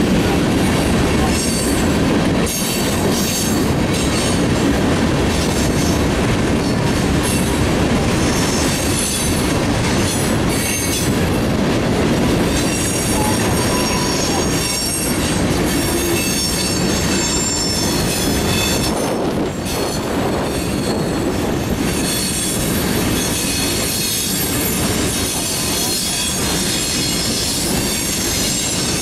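Freight cars of a manifest train (covered hoppers and tank cars) rolling past: a steady, loud rumble of steel wheels on the rails, with high-pitched wheel squeals that come and go, more in the second half.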